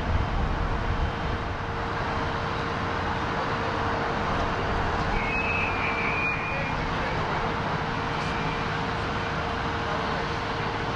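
Fire apparatus running at a fire scene: a steady diesel engine drone with a constant low hum.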